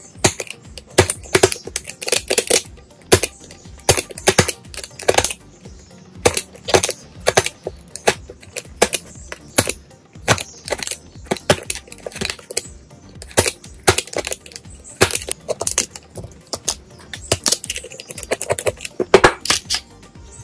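Rapid, irregular sharp clicks and light knocks, a few each second, from small hard parts and wooden pieces being handled in workshop assembly work.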